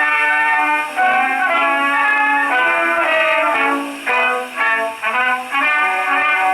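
Brass band music with trumpets and trombones played from a record on an acoustic gramophone driven by a repaired HMV No. 59 motor. The sound is thin and middle-heavy, with no deep bass.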